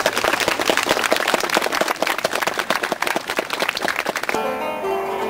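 Audience applauding with many hands clapping, cut off abruptly about four seconds in. Plucked notes on a koto, the Japanese zither, follow.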